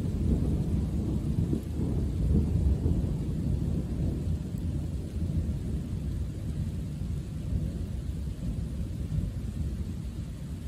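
Thunder rolling: a deep rumble that is loudest in the first few seconds, then slowly fades away.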